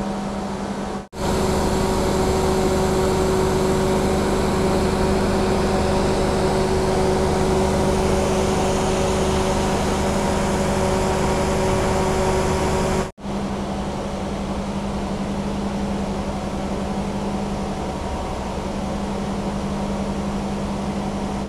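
The train's power-car diesel generator running steadily: a loud, even drone with a constant hum. The sound breaks off for an instant about a second in and again about thirteen seconds in, and is louder between those breaks.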